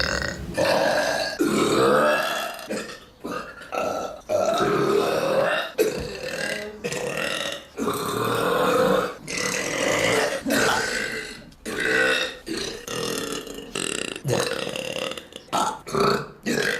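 A young woman belching over and over: about a dozen loud burps, most of them long, with short breaks between, and a quicker run of short burps near the end.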